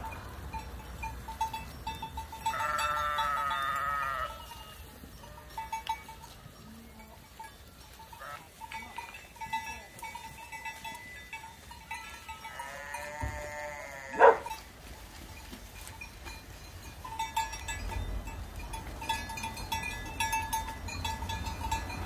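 Sheep bleating in a grazing flock: one long wavering bleat a few seconds in, and another about thirteen seconds in that ends in a sharp click. A faint repeated high note sounds in the background between the bleats.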